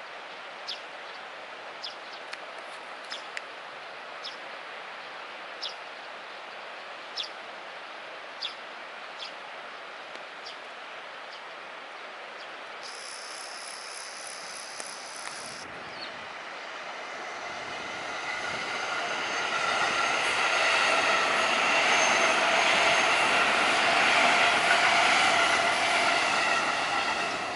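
Electric commuter train running past and onto a steel girder bridge. Its rumble builds from about two-thirds of the way in to a loud, steady run with several whining tones over it, then begins to fade at the very end.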